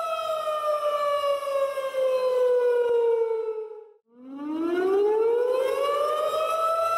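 Civil defense siren wailing. Its pitch falls steadily for about four seconds, cuts out for a moment, then rises back up to its full steady pitch near the end.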